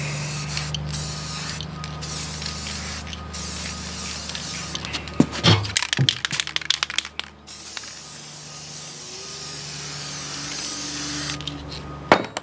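Aerosol spray paint can spraying a first coat onto a differential cover, a steady hiss broken by short pauses. About five seconds in comes a run of sharp rattling clicks, the can's mixing ball being shaken, then the spraying resumes, and near the end the can is set down with a knock.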